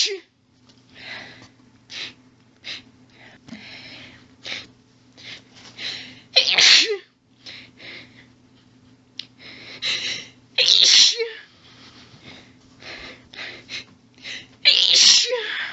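A woman in a rapid sneezing fit: a run of short, stifled sneezes and hitching breaths, broken by three louder sneezes about six, eleven and fifteen seconds in.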